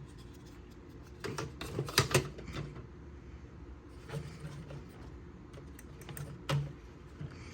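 Plastic smoke alarm housings being handled: a scattering of small clicks and taps, most of them between one and two and a half seconds in, with one more near the end.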